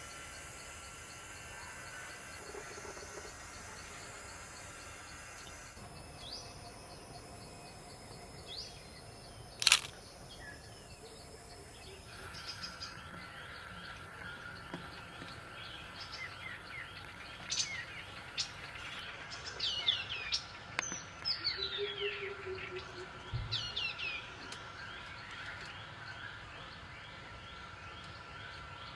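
Wild forest birds calling, with many short whistled notes sliding downward, thickest in the second half, over a steady high-pitched background drone. One sharp click about ten seconds in is the loudest sound.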